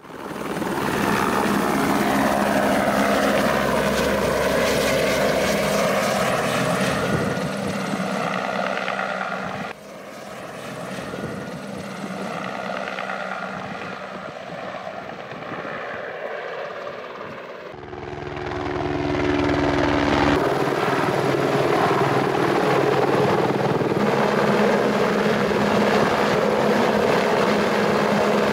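Helicopter turbine and rotor running steadily. It is loud at first, fainter from about ten seconds in, then loud again from about twenty seconds in while it hovers close overhead with a load hanging from its long line.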